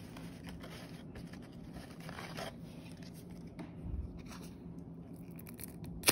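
Paper lottery tickets rustling and sliding against each other as a hand sorts through a box of them and picks one out, with a soft thud about four seconds in. A single sharp snap, the loudest sound, comes right at the end.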